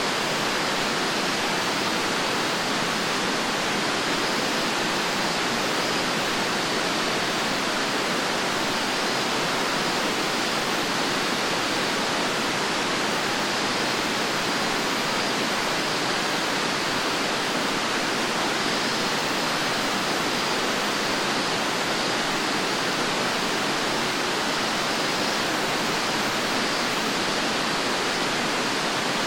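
Fukuroda Falls pouring: an even, unbroken rush of falling water with no change in level.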